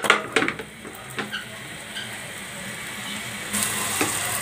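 A paratha frying in butter in a nonstick pan, sizzling steadily, with a few sharp clicks of a silicone spatula against the pan in the first half second. The sizzle grows louder about three and a half seconds in, and another click comes near the end.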